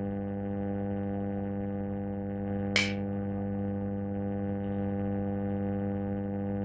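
Steady electrical mains hum, an even buzz with a strong low tone and many overtones. A single brief sharp click comes about three seconds in.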